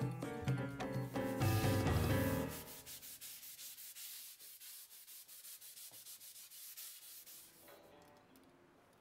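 Metal hand plane shaving a hardwood board in repeated strokes, a dry rasping hiss. It is loudest for the first couple of seconds over background music, which stops about two and a half seconds in, then goes on more quietly and fades near the end.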